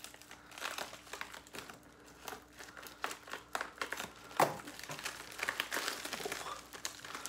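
Plastic poly mailer bag crinkling as it is snipped open with scissors and pulled apart by hand, in irregular crackles and small clicks, with one sharper clack about halfway through.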